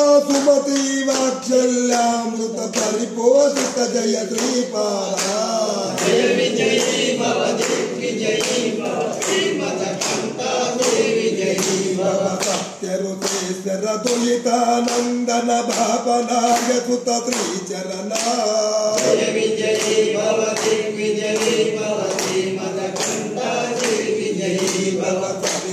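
A man singing a devotional song into a microphone, his voice held and bending over long notes, over a steady beat of sharp claps.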